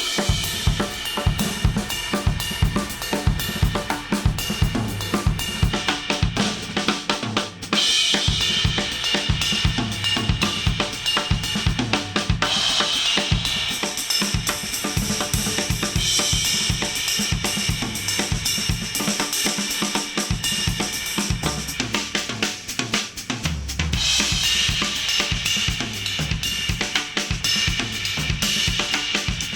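Drum kit playing a fast, busy beat, heard as music playback through reference headphones recorded at an artificial ear simulator.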